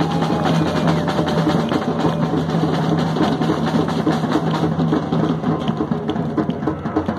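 Several hand drums, snare drums and a larger drum, beaten in a fast, dense rhythm. A steady low drone sounds underneath.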